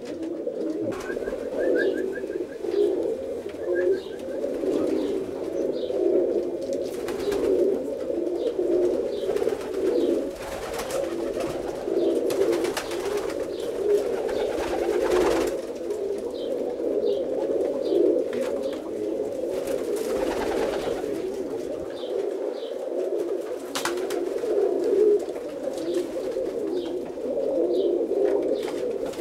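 Several domestic roller pigeons cooing at once, an unbroken overlapping chorus of low coos, with a few faint short knocks.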